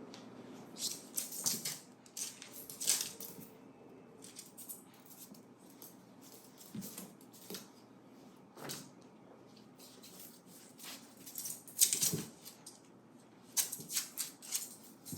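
Irregular bursts of rustling and scrabbling as a frail 16-year-old dog with heart disease and hydrocephalus struggles and shifts about, several short scratchy clusters with quieter gaps between.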